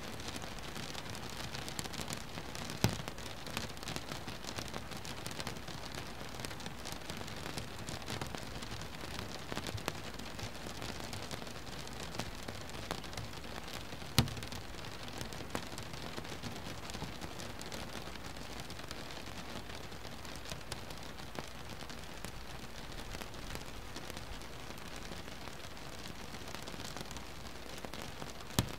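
Rain falling on a boat: a steady patter of many small drops, with three louder single taps, about three seconds in, about halfway through and near the end.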